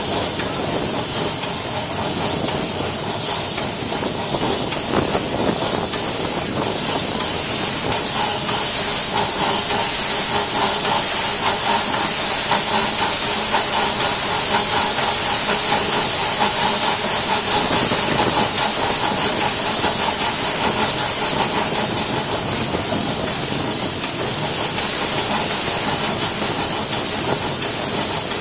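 Two-foot-gauge steam locomotive running, heard from the cab: a loud, steady hiss of steam that does not let up.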